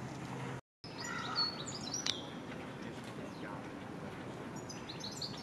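Birds chirping in short high calls over a steady outdoor background hiss, after a brief cut to silence about half a second in.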